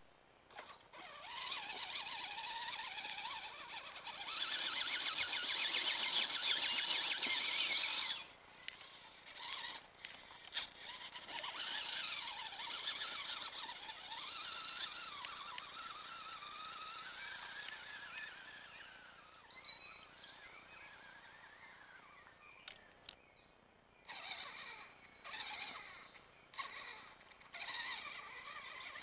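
Traxxas 1/16 Summit radio-controlled truck's electric motor and gears whining in bursts as it is driven, the pitch rising and falling with the throttle. Loudest between about four and eight seconds in, with short pauses between runs.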